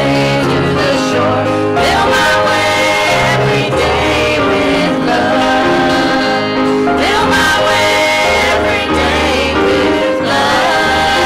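Church praise band singing a gospel song live, several voices together over acoustic and electric guitars.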